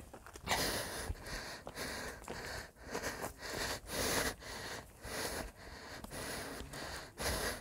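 Footsteps crunching on a stony gravel path at a walking pace, about two steps a second.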